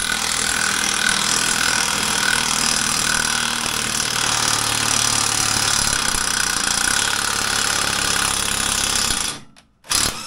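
Impact wrench hammering steadily for about nine seconds, then one short burst, driving down the 9/16 bolt of a snowmobile primary clutch to draw its ribbed cover onto a stiff press fit.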